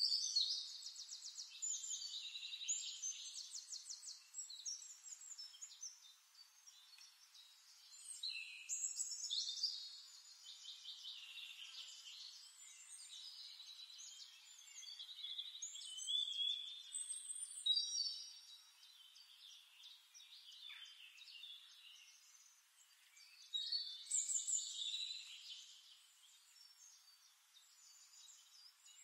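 Birdsong: a small songbird singing rapid trills and chirps in bursts of a few seconds, with quieter gaps between them.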